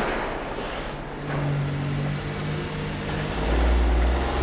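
A vehicle engine running with a steady hum that turns into a louder, deep rumble about three and a half seconds in, after a short burst of noise at the start.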